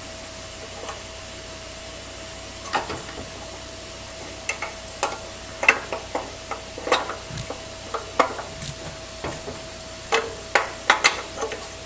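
Metal clicks and clinks of a camshaft being worked into a Predator 212cc engine's crankcase, its gear knocking against the crankshaft timing gear over several tries to seat it in the right tooth. The clicks come in irregular clusters, starting a few seconds in, over a faint steady hum.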